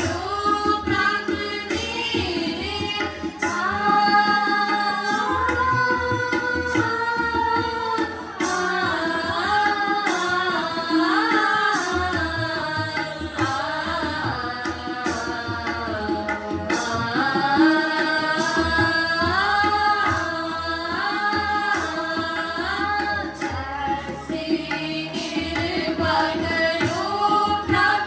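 Shabad kirtan: a voice singing a Sikh devotional hymn in long, gliding melodic phrases over a steady, busy tabla accompaniment.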